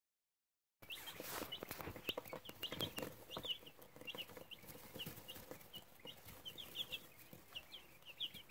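Newly hatched chicks peeping: a steady run of short, high cheeps, several a second, starting just under a second in. Scattered clicks and rustles come along with them, most of them in the first few seconds.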